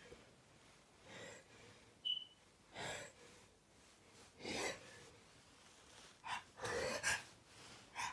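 A person with a cold taking a series of short, faint gasping inhales a second or two apart: the hitching breaths that come before a sneeze. There is a brief high squeak about two seconds in.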